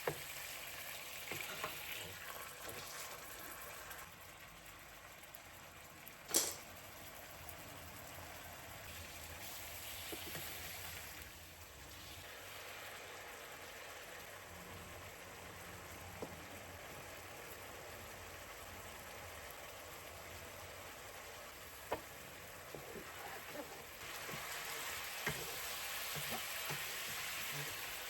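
Food sizzling in a frying pan, a steady hiss broken by a few sharp clicks and knocks, the loudest about six seconds in; the sizzle grows louder near the end.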